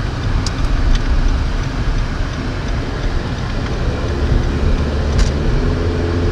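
Car cabin road noise while driving: a steady low rumble of the engine and tyres, with a few light ticks. About four seconds in, a low steady hum joins the rumble.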